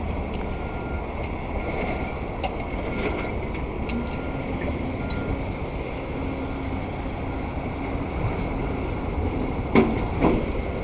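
Steady rumble of street traffic and construction machinery, with a reversing alarm beeping about once a second.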